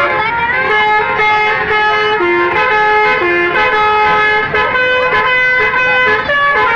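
Indonesian 'telolet' multi-tone bus horn playing a melody: several horn notes sound together and step from pitch to pitch.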